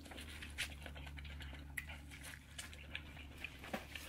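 A person chewing close to the microphone: irregular soft mouth clicks and small crunches, over a faint steady low hum.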